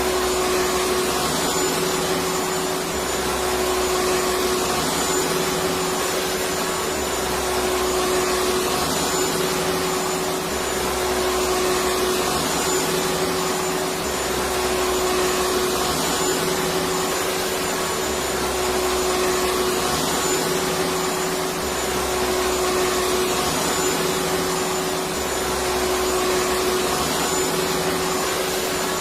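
Electric vacuum cleaner running steadily with a constant whine. A low hum comes and goes every few seconds.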